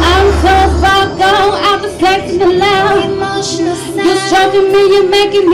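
A woman singing live into a microphone with music behind her: long held notes that waver in pitch, without clear words. A low bass note underneath stops about a second in.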